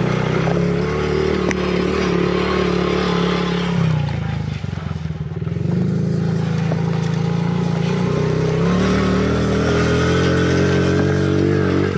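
Dirt bike engine running hard across a rough field, heard close from a camera mounted on the bike, with wind on the microphone. The engine eases off for about two seconds around four seconds in amid rattling from the bumps, then pulls steadily again.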